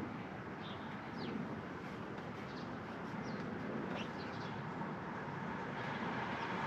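Birds chirping now and then, short high falling calls, over steady outdoor background noise.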